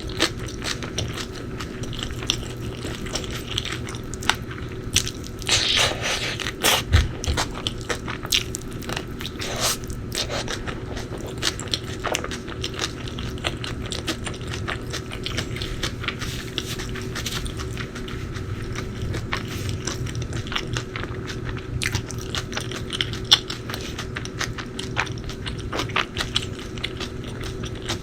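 Close-miked eating: biting and chewing with repeated crunches and sharp mouth clicks, busiest a few seconds in and again near the end.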